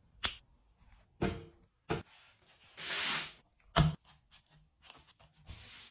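Kitchen containers and food items being handled while a refrigerator is organized: four separate knocks as things are set down, with a brief rustling, hissing noise in the middle and another starting near the end.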